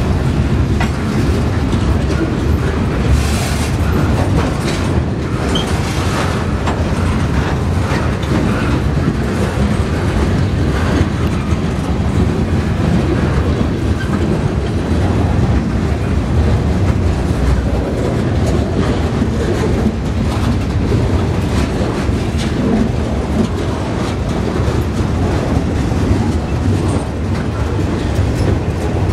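Freight train of boxcars and tank cars rolling steadily past: a continuous low rumble with many quick clicks and knocks of wheels over the rail joints.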